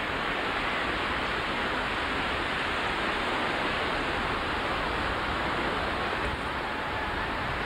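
Ocean surf breaking and washing in the shallows, a steady rushing noise.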